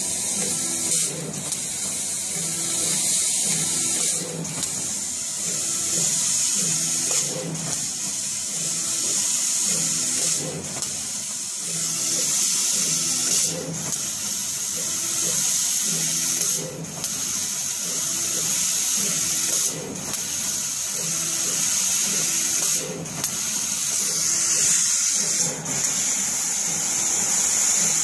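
CO2 laser cutter at work: a steady hiss of air blowing through the cutting head, with a quick run of short stepper-motor whines as the head traces small cuts. A brief click and dip comes about every three seconds.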